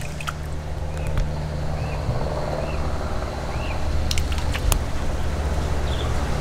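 A steady low engine drone, with a few sharp clicks, the loudest about four to five seconds in, and short faint chirps in between.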